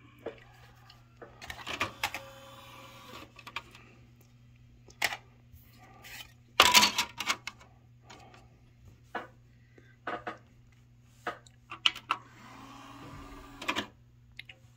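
Sony DVD/CD player's motorised disc tray whirring open and then shut, with clicks and knocks of a CD being handled in the open tray. Near the end a short motor whir as the disc starts loading, over a faint steady electrical hum.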